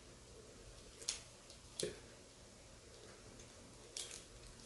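A few light clicks of hard plastic parts being handled as a phone-holder attachment is fitted onto a camera tripod: one about a second in, one near two seconds, and one near the end, with quiet between.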